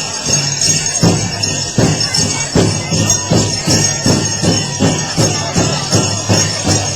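Powwow drum struck in unison by the drum group. The beat starts about a second in and quickens to roughly three strokes a second, over a steady high jingling of dancers' bells and jingles.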